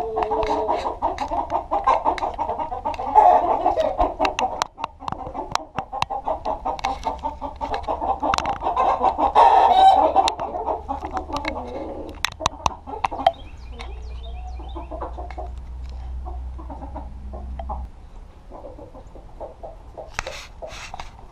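A flock of chickens clucking, many calls overlapping, with scattered sharp clicks. The clucking is dense and loud for the first dozen seconds or so, then thins out and goes quieter.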